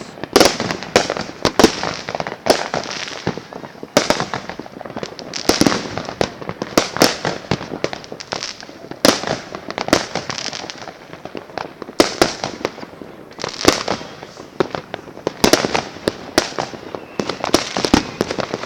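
New Year's Eve fireworks and firecrackers going off all around: a dense, irregular run of sharp bangs and crackles, several a second, with no let-up.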